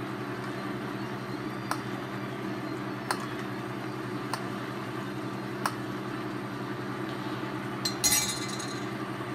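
Sauce bubbling in a pan while a metal spoon bastes the chicken, clinking against the pan every second or so, with a louder scrape and clatter near the end. A steady mechanical hum runs underneath.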